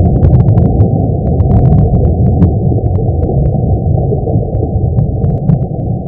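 Sonified 'sound of the Sun' credited to NASA: a steady, dense low rumble with scattered faint crackling clicks above it.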